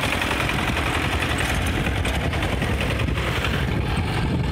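Single-cylinder diesel engine of a two-wheel walking tractor running steadily at close range, with an even, rapid low chugging.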